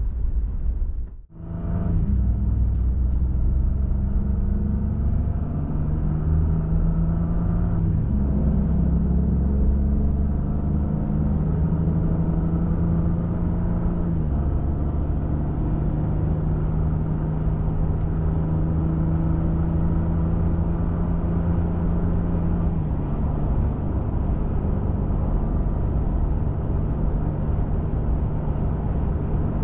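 Pickup truck engine and road noise heard from inside the cab while driving, a steady drone whose pitch steps a few times. The sound cuts out briefly about a second in.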